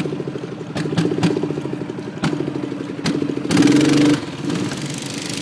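Go-kart's small engine running as the kart drives, with a few sharp clicks in the first three seconds. About three and a half seconds in, the engine swells louder for about half a second, with a rush of hiss that carries on afterward.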